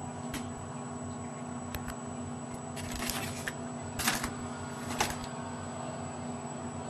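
Leafy tree branches rustling and crackling in several short bursts, the loudest about four and five seconds in, over a steady engine hum.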